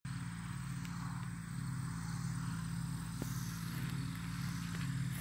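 A steady low mechanical drone, with a few faint clicks.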